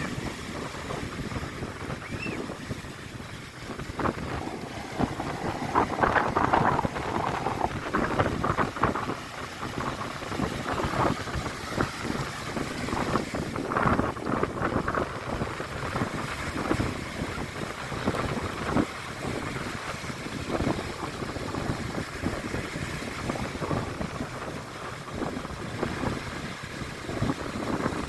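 Wind buffeting the microphone in uneven gusts, with the sea washing in the background.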